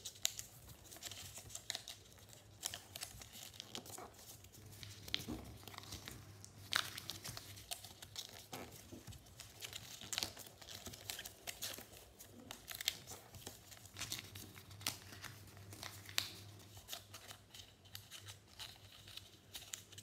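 A sheet of paper rustling and crinkling as it is folded and creased by hand, in short, irregular crackles.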